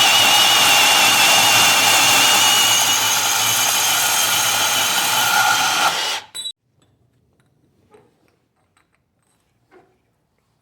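Electric angle grinder running against steel, with a high motor whine over a rough grinding hiss, as paint is ground off for welding. It stops suddenly about six seconds in, followed by a few faint clicks.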